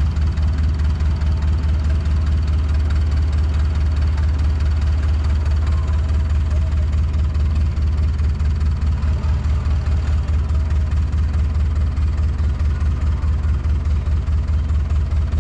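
Skid steer engine running steadily, a loud low drone with an even pulse.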